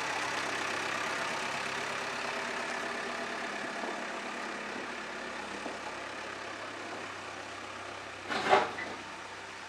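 JCB 3DX backhoe loader's diesel engine running steadily and slowly fading, with one brief, loud burst of sound near the end.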